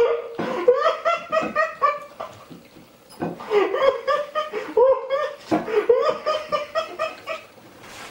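A person laughing in three long bouts, each a quick run of pulses.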